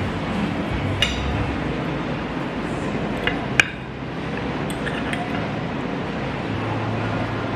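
Cutlery and dishes clinking over a steady din of cafe background noise: a few separate sharp clinks, the loudest about three and a half seconds in.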